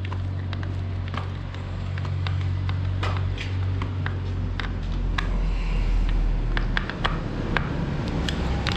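Husqvarna 553 RBX backpack brush cutter's small two-stroke engine idling with a steady low hum, its pitch shifting slightly about five seconds in, with scattered light clicks.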